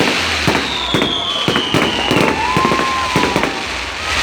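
Fireworks going off in a quick, irregular string of sharp bangs and crackles, with long whistles over them: a high one slowly falling in pitch, then a lower one that rises and falls.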